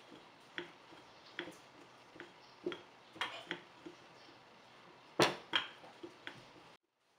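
Wooden rolling pin with handles rolling back and forth over a sheet of dough on a silicone mat, giving a light click or knock at each stroke, about one every three-quarters of a second, the loudest a double knock about five seconds in. The sound cuts off abruptly just before the end.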